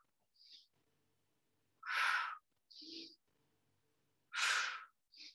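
A woman breathing hard through push-ups: two strong, forceful exhales about two and a half seconds apart, one on each press up, with short, quick inhales between them.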